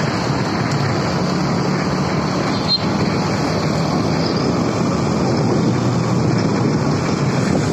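Steady vehicle engine drone and road noise in moving traffic, close behind a cargo truck on the move.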